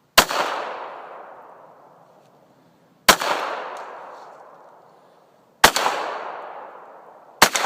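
.22 handgun fired four times, a couple of seconds apart, each sharp shot followed by a long fading echo.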